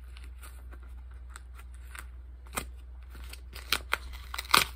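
Taped paper wrapping being torn open and crinkled by hand, in scattered short crackles with a louder one near the end.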